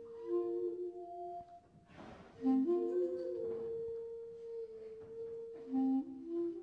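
Slow instrumental background music: long held notes on a woodwind instrument, moving from one pitch to the next every second or two.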